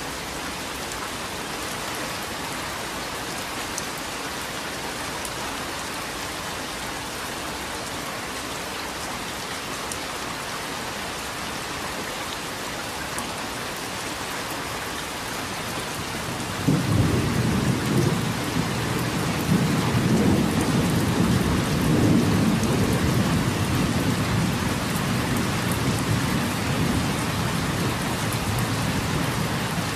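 Steady rain falling, with a low rumble of thunder that starts suddenly a little past halfway and rolls on, slowly easing.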